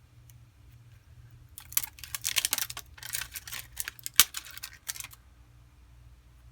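Crinkling, rustling plastic as the backing film is handled and peeled from the adhesive on a replacement phone back glass, for about three and a half seconds, with one sharp click about four seconds in.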